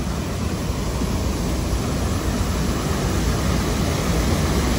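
Steady rushing of water pouring down a small drop at a canal lock, where the water level falls from one side to the other. It grows slightly louder.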